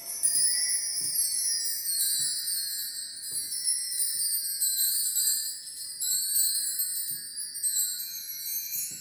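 Drum kit being played: a continuous wash of ringing cymbals, with soft kick-drum thumps about once a second underneath.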